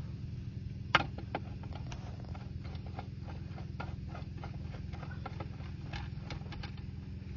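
Wooden table legs being screwed into metal mounting plates on a tabletop: a sharp knock about a second in, then a run of small clicks and ticks as the legs turn in the plates, over a steady low hum.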